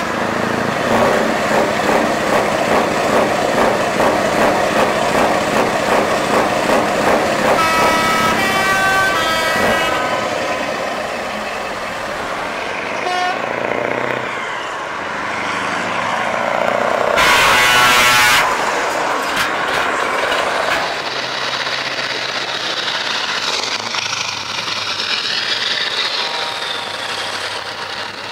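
Heavy trucks with open, straight-piped V8 exhausts driving slowly past, their engines running loud with a deep throb. They sound their air horns: a run of short horn notes about eight seconds in, and a long, very loud horn blast around seventeen seconds in.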